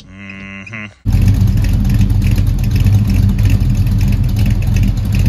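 Dodge Demon 340's 340 cubic-inch small-block V8 idling steadily just after startup, with a light ticking that the owner puts down to valve-train noise on startup that always clears up. The loud idle begins suddenly about a second in, after a quieter, higher-pitched engine sound.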